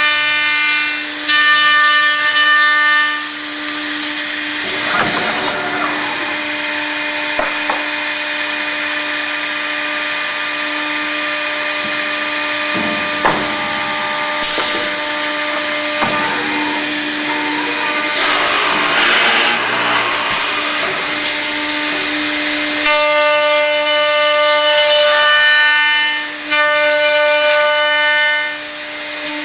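Accu-Systems cup hinge boring and routing machine working through its cycle on wood: a steady motor hum, with a high whine near the start and again near the end. Several sharp clunks come in the first half, and a stretch of cutting noise a little past the middle.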